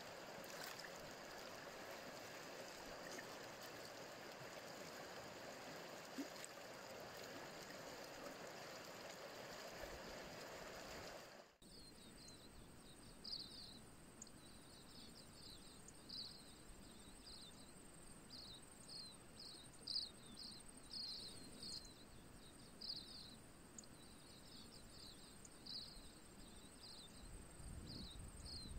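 River water rushing steadily over a shallow rapid. About twelve seconds in it cuts to a quieter scene where insects chirp in short, irregularly repeated high calls.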